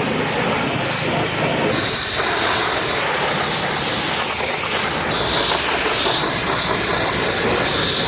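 Pressure washer spraying water onto a muddy truck in a steady, loud hiss. The tone of the spray changes abruptly a few times.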